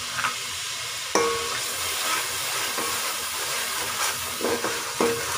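Onion, ginger-garlic and tomato masala sizzling in oil in a metal pot, with a steady hiss. A slotted metal spatula stirs it and clinks against the pot a few times, loudest about a second in.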